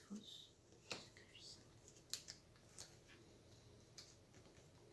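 Near silence, with a few faint clicks and taps of playing cards being handled and laid on a table.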